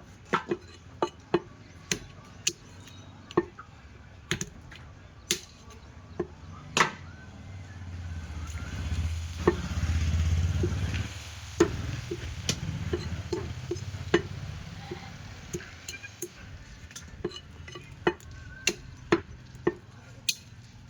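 Butcher's blade chopping goat meat and bone: sharp knocks at an uneven pace, about one or two a second. A low rumble swells up in the middle and fades away.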